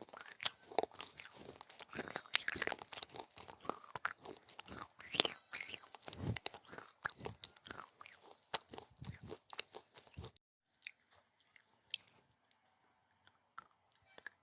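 Close-up biting and chewing of hard, brittle pieces of coloured clay, a dense run of crunching and crackling that cuts off suddenly about ten seconds in, leaving only faint scattered clicks.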